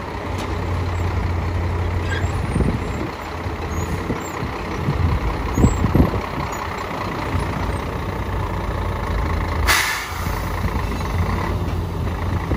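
Scania 114C 380 dump truck's diesel engine running at low revs as the truck creeps forward over rough dirt, with a couple of dull knocks near the middle. A short hiss of air from the truck's air brakes about ten seconds in.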